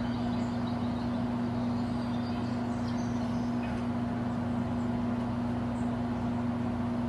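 A steady low machine hum holding one constant pitch throughout.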